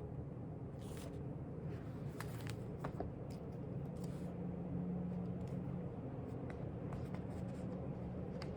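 Steady low background hum with soft paper rustles and light clicks of a book being handled and its pages turned, several in the first few seconds and one near the end.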